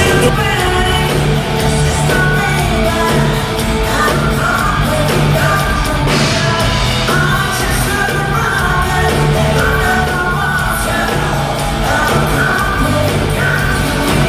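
A woman singing a rock-tinged pop song over a full band, with a steady bass and drum beat.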